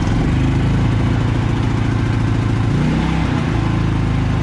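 Predator 3500 inverter generator's single-cylinder engine running steadily just after an electric start, economy mode off. Its pitch shifts briefly about three seconds in.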